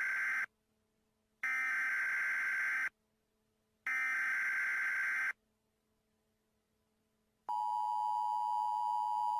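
Emergency Alert System SAME header: three harsh digital data bursts, each about a second and a half long and a second apart, with the first already ending half a second in. About seven and a half seconds in, the steady two-tone EAS attention signal starts.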